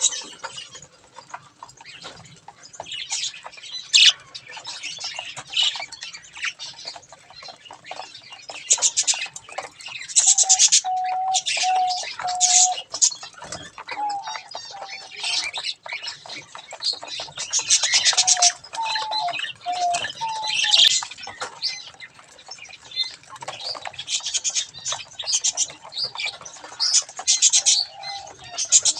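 Budgerigars chattering in an aviary: a busy mix of high chirps and warbles in irregular bursts, with a few short, lower, clearer call notes now and then.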